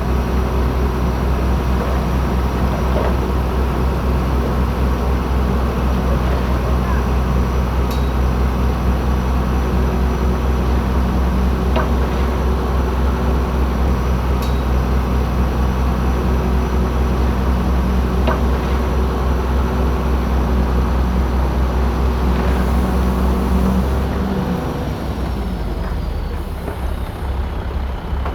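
Heavy diesel engine of earthmoving machinery running steadily under load with a deep, constant hum. Near the end it eases off and the sound drops.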